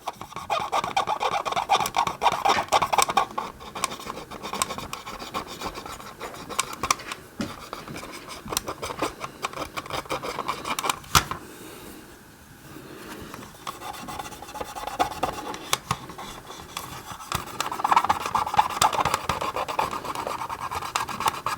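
Oil-soaked cotton swab rubbing and scratching back and forth along a decal edge on a hard plastic toy hull, working residue out of the seam. The strokes are quick and continuous, ease off for a moment in the middle, and there is one sharper click shortly before that.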